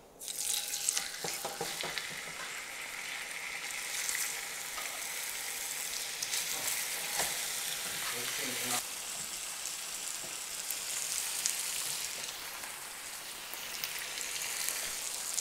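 Seasoned chicken breasts and thighs frying in hot oil in a skillet over high heat. The sizzle starts suddenly as the first piece goes into the pan and keeps up steadily, with scattered crackles and pops.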